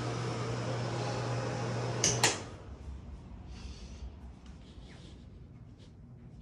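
A steady machine hum cut off by two sharp knocks, like a door shutting, about two seconds in. A few faint light knocks follow.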